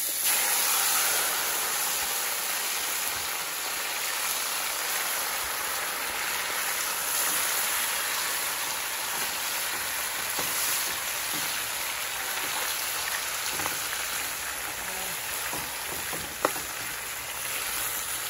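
Raw chicken pieces sizzling steadily in hot herb-infused olive oil in a large aluminium pot, a rain-like hiss. A few sharp knocks come from the wooden spoon turning the pieces, the loudest about three-quarters of the way through.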